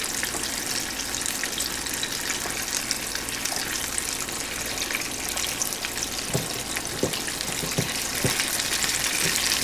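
Hot oil sizzling and crackling steadily as battered squirrel pieces deep-fry in a small saucepan. A few short knocks come about six to eight seconds in, from hands working dry batter in a metal bowl.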